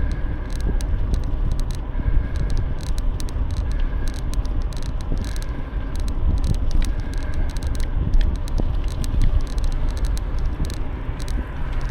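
Bicycle riding noise: wind rumbling on the microphone and tyres rolling on the path, with frequent small clicks and rattles from the bike.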